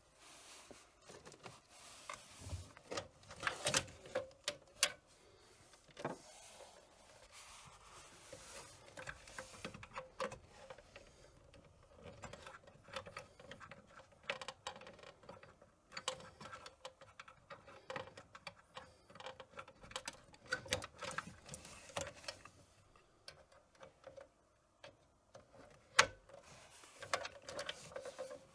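Irregular small clicks, taps and knocks of hands refitting a massage chair's main circuit board, plugging its plastic connectors back in, over a faint steady hum.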